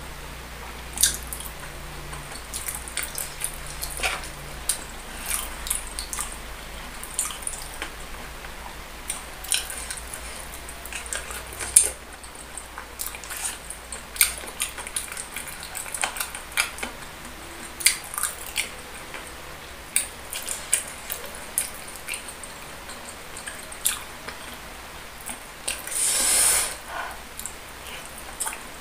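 Close-miked wet chewing and lip-smacking of boneless chicken feet in a thick chili sauce, with many short sharp clicks and sticky mouth sounds, and chopsticks tapping the tray. A longer hissing sound comes near the end.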